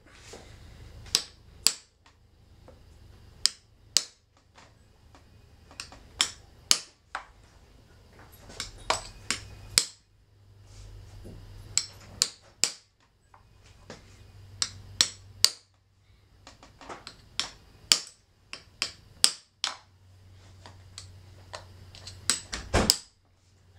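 Dozens of light, sharp taps, often in quick pairs or small clusters with short pauses between, as a duct-tape-wrapped tool is struck to drive a bicycle crown race down onto the fork's steerer tube, working around the race to seat it against the fork crown.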